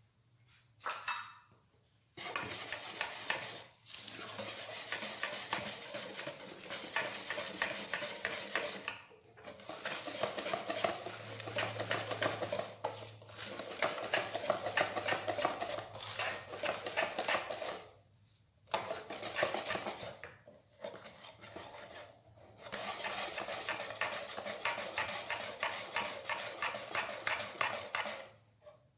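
A wire whisk beating thick chocolate cake batter in a bowl: fast, rapid clicking strokes of the wires against the bowl. The beating comes in several long runs with short breaks between them.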